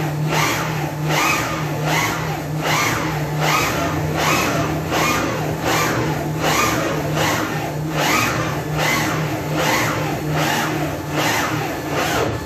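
Airbus A320 trimmable horizontal stabilizer actuator running under manual trim from the cockpit, its ballscrew and gearbox turning. The sound is a whir that rises and falls about every three-quarters of a second over a steady low hum.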